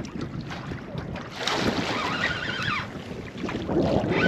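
Wind buffeting the microphone over water slapping against a small boat's hull, with a faint wavering high whistle in the middle and again near the end.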